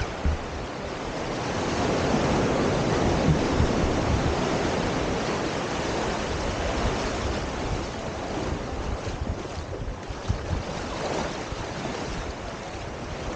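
Ocean surf washing onto a sandy beach, a steady hiss that swells about two seconds in and then eases off, with wind buffeting the microphone.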